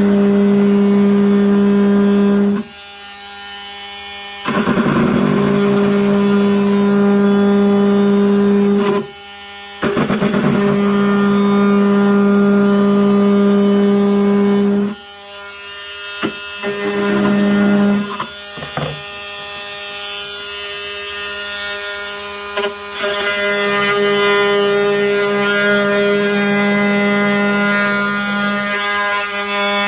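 Milwaukee M18 cordless oscillating multi-tool buzzing as it cuts thick plastic, in runs that stop and restart several times. It runs quieter over the last several seconds.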